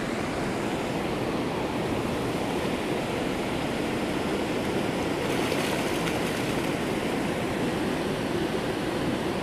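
Steady rush of turbulent water churning out below a river dam spillway.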